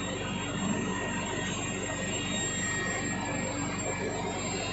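Centre lathe running with its four-jaw chuck spinning: a steady mechanical hum from the motor and gearing, with a fast, even pulsing.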